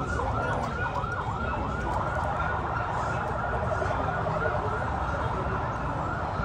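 Siren sounding in quick rising-and-falling sweeps, about three a second, over a steady low rumble.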